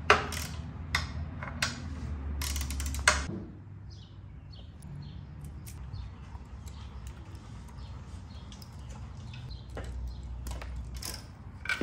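Hand tools working the loosened rear fender bolts of a motorcycle: scattered metal clicks and clanks, with a quick run of clicks about two and a half seconds in. A low rumble sits under the first few seconds.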